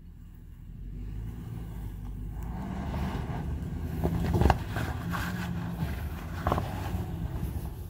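A 2013 Toyota Sequoia's V8 engine pulling under load as the lifted SUV crawls up a sandstone ledge, getting louder from about two seconds in. Two sharp knocks, one near the middle and one later.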